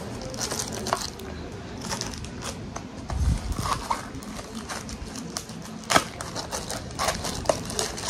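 A plastic poly mailer bag crinkling and rustling as it is handled and opened, with scattered sharp clicks, the loudest about six seconds in.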